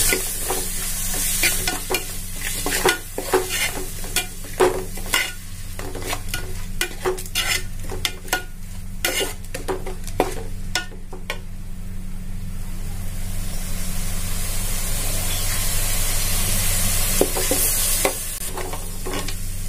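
Chopped tomato and onion sizzling in hot oil in a metal pot while a perforated steel ladle stirs and scrapes against the pan, sautéing the tomato down. The ladle clinks and scrapes through the first half and again near the end, with steady sizzling in between.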